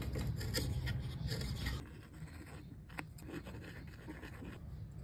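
A chisel blade shaving a small wooden wedge held in a vise: dry scraping strokes for about two seconds, then quieter rubbing with a single sharp click about three seconds in.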